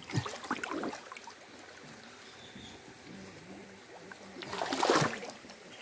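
Cast net and caught fish being handled on wet river rocks: scattered rustles and small clicks in the first second, then a louder rustling rush about five seconds in.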